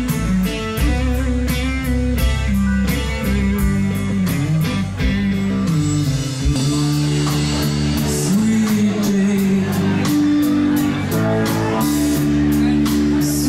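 Live rock band: semiclean Stratocaster electric guitar over bass and drums, caught by a camera-mounted microphone. About six seconds in it cuts to a recording made with automatic gain control, where crowd noise swamps the vocal, the bass distorts and the highs are smeared.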